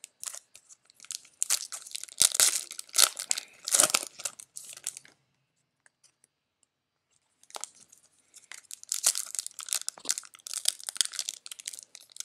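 Trading-card pack wrapper and cards being handled: crinkling and rustling in two stretches of about five seconds each, with a short quiet gap between them.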